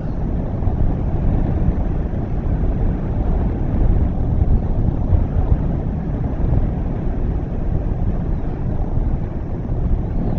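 Wind buffeting an outdoor microphone: a steady low rushing noise that swells and eases.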